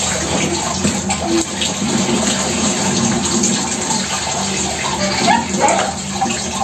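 Water running steadily from a wall tap and splashing into a plastic bucket and basket in a small tiled bathroom.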